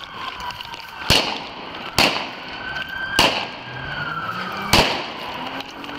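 Four gunshots about a second apart, sharp and loud, with a siren wailing up and down behind them.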